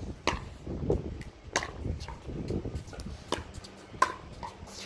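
Pickleball paddles striking a plastic pickleball during a rally: several sharp, hollow pocks at uneven intervals, the loudest about four seconds in.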